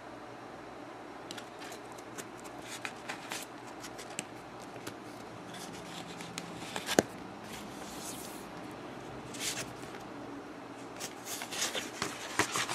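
Paper instruction sheets being handled and turned: soft rustling with scattered crinkles, one sharp tick about seven seconds in, and busier rustling near the end.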